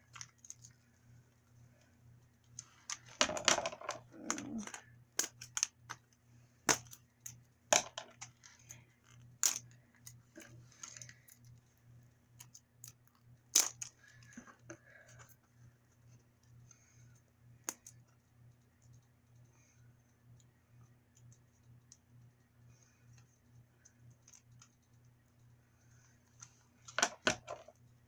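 Scattered clicks, taps and short crinkles of plastic toy packaging being handled and pried open, with a steady low hum underneath.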